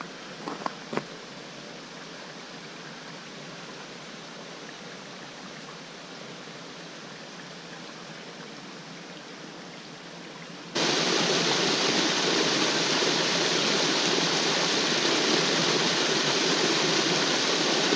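A small woodland creek, running high and fast with snowmelt and rain, rushing steadily and splashing over a small drop in its bank. The sound jumps suddenly much louder about eleven seconds in, close to the cascade. A few footsteps crunch in the snow in the first second.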